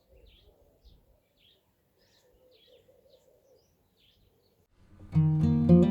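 Faint birds chirping now and then over quiet outdoor background. About five seconds in, loud strummed acoustic guitar music starts.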